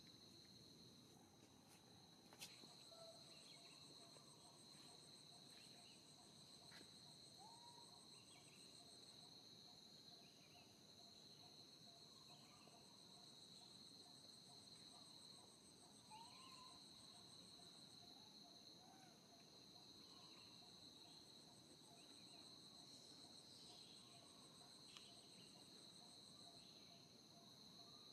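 Faint chorus of insects: a steady high-pitched drone, with a pulsing buzz that joins in three long stretches. There is a single sharp click about two and a half seconds in.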